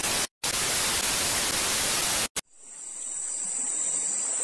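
An edited-in burst of white-noise static, about two seconds long with a brief break near its start, that cuts off sharply. Then a steady high-pitched insect drone fades in.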